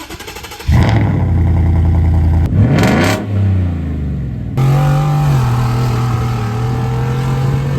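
2018 Ford F-150's 5.0 V8 engine and exhaust: the engine note comes in loudly, revs once with a pitch that rises and falls, then after a cut idles steadily, its pitch stepping down a little shortly after.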